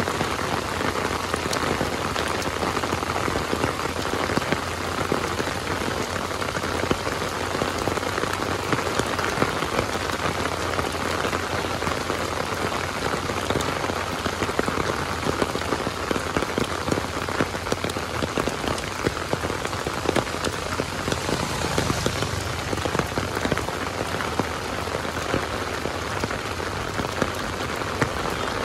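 Heavy rain falling on open lake water: a steady, dense hiss made of countless small drop impacts, even throughout.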